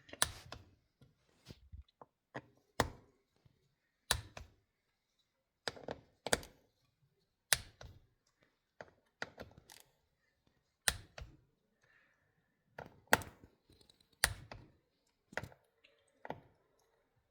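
Torque wrench set to 60 inch-pounds clicking as each 68RFE valve body bolt reaches torque on a final check pass. The loud single clicks come every one to three seconds, with quieter ticks between.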